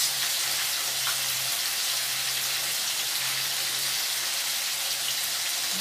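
Marinated chicken pieces shallow-frying in hot oil in a frying pan, with a steady sizzle.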